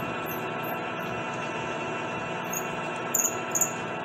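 Metal lathe running steadily with a rifle barrel spinning in the chuck, a steady machine hum with several held tones, during the chambering of the barrel. A few brief high squeaks come about three seconds in.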